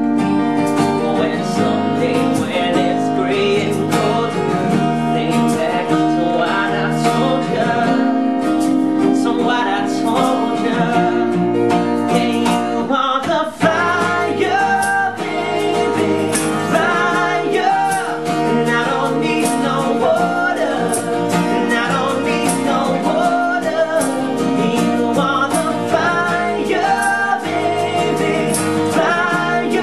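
A pop band playing a song live: guitar with singing, the voice wavering through sustained notes, and a brief break about halfway through.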